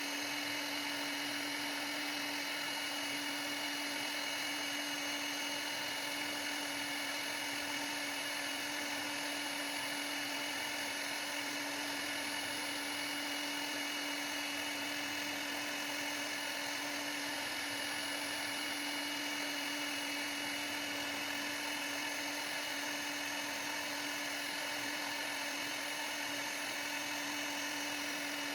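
CNC router spindle running steadily while cutting, a constant high whine with a strong steady tone.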